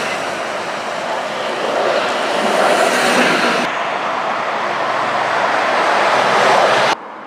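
City buses driving along a street: a bus's engine and tyre noise as it approaches, then an abrupt change to a Scania city bus approaching with its engine running. Just before the end the sound drops suddenly to quieter street traffic.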